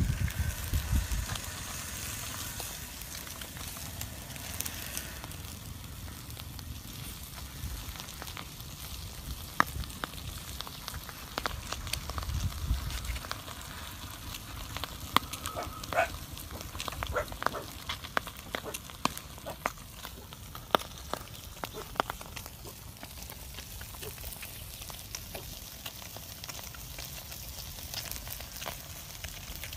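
Small wood fire crackling, with scattered sharp snaps and pops throughout. Brief low rumbles near the start and about halfway through.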